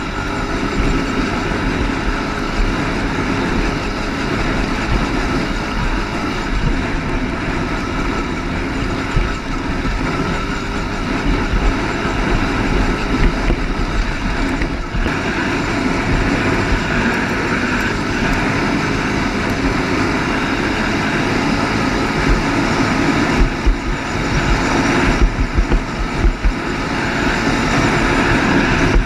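ATV engine running steadily while riding, over a rough low rumble.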